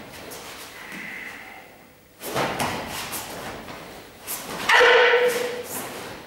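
Karateka performing a kata: sharp snaps of the gi and sounds of movement with each technique, then a loud, one-second kiai shout about five seconds in.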